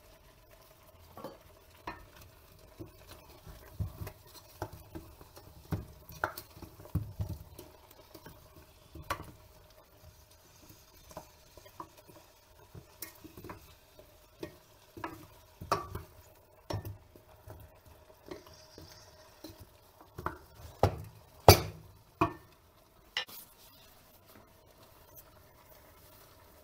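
Gloved hands working food around in a stainless steel pot: soft rustling with scattered taps and knocks against the pot, and a cluster of sharper knocks about four-fifths of the way through. A faint steady hum runs underneath.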